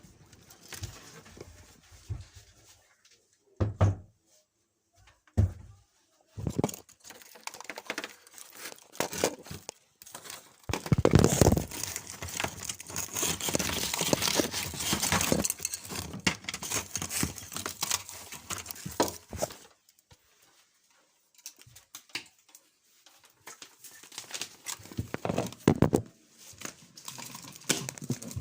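Rustling and crinkling handling noise with scattered knocks and thuds, and a longer stretch of rustling near the middle. No alarm sounding.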